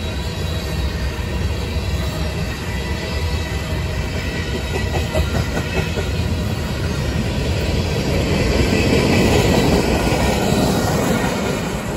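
Train rolling past on the track: steady low rumble of wheels on rail with faint high squealing tones. It grows louder about eight seconds in and eases off near the end.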